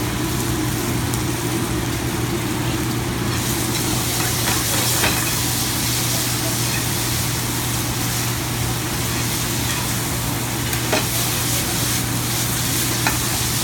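Stir-fried ramen noodles, chicken and vegetables sizzling in a hot pan on a gas burner as they are turned and tossed with metal tongs. The sizzle grows louder about three seconds in, with a few light clicks of the tongs on the pan, over a steady low hum.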